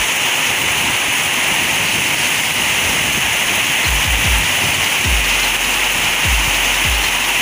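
Background music with a steady hiss and a deep, thudding beat that comes in about four seconds in.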